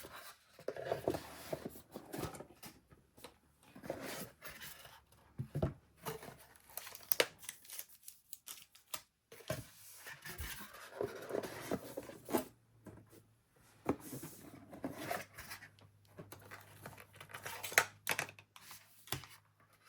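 Trading card box packaging being handled and torn open: a run of irregular scratchy rips, rustles and scrapes of cardboard and wrapping.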